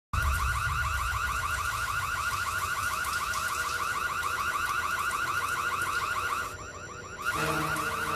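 Electronic alarm sounding a fast, unbroken run of short rising chirps over a low rumble. It dips briefly about two-thirds of the way through, and low steady tones join near the end.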